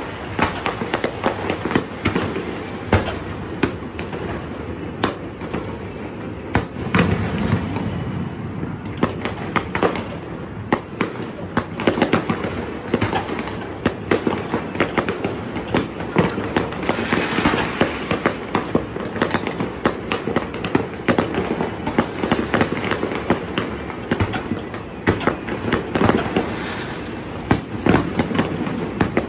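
Fireworks display: a dense, irregular run of sharp bangs and crackling pops, one after another over a continuous rumble.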